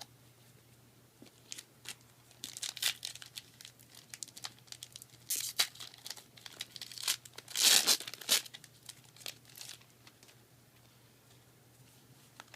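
A foil Yu-Gi-Oh booster pack being torn open and its wrapper crinkled, in several irregular bursts with light clicks between, the loudest burst about eight seconds in.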